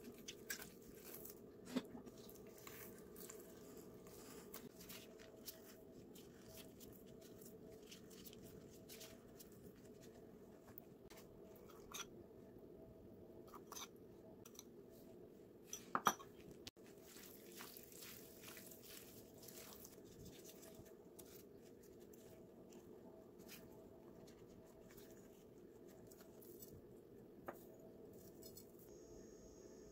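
Faint kitchen handling sounds: cooked chicken being pulled apart by gloved hands, with a few soft clicks and knocks of a bowl and utensils on the plates, the loudest about sixteen seconds in. A low steady hum runs underneath.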